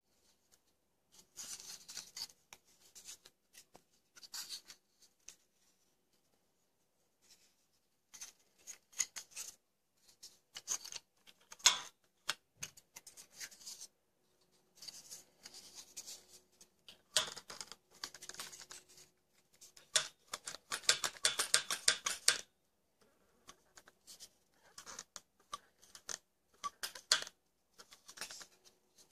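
Close handling noise of a homemade puppet eye-blink mechanism made of wooden ball eyes, cardboard and a bent wire lever: irregular bursts of scratching, rubbing and small clicks as fingers work the parts, with a dense run of rapid clicking about two-thirds of the way through.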